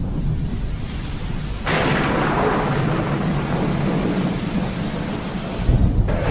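Thunderstorm with rain: a thunderclap breaks in suddenly a little under two seconds in and rolls on as a long, slowly fading rumble, with another low rumble building near the end, over a steady hiss of rain.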